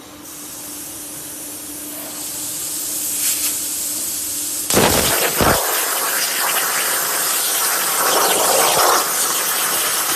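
Hypertherm CNC plasma cutter: a hiss that grows louder over a steady hum, then about five seconds in the arc starts with a sudden loud onset and a couple of thuds, and the torch cuts with a loud, dense crackling hiss.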